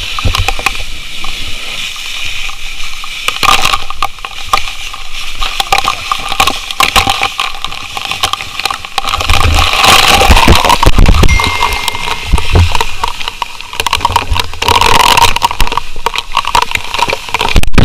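Fire hose spraying a jet of water onto a burning building's metal grille and walls: a loud, steady rush of water with many sharp spatters and crackles as the spray strikes.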